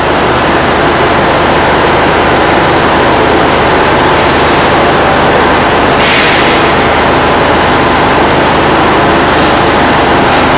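Loud, steady industrial machinery noise: a continuous rushing noise with a low hum underneath, getting slightly hissier about six seconds in.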